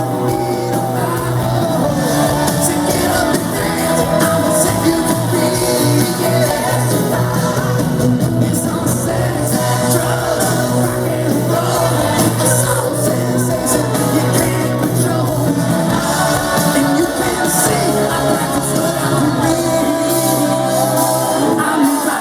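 Live rock band playing, with singing over it.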